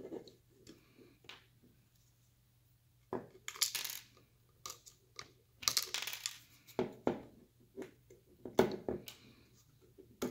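Small plastic and metal parts handled on a table: an Allen key pushing M4 nuts out of 3D-printed slot adapters in a polymer rifle stock, with sharp clicks as the nuts pop out and small parts clatter, plus scraping. A short quiet pause comes about two seconds in, and the clicks and clatter come thicker after about three seconds.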